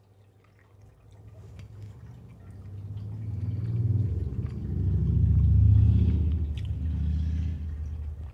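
Someone chewing a mouthful of spaghetti, with a few faint mouth clicks. Under it, a low rumble swells from about a second in, peaks just past the middle and eases off.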